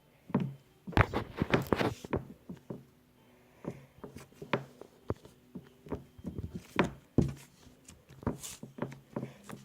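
Butter slime being pressed and pulled against a table top, giving off irregular sharp clicks and pops, some in quick clusters.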